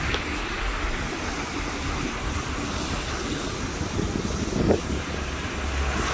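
Steady rushing roar of a waterfall, with a low rumble beneath it. A short thump comes about three-quarters of the way through and is the loudest moment.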